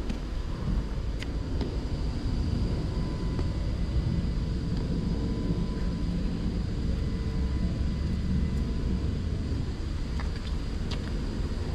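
Steady low mechanical rumble, like running machinery, with a few faint clicks.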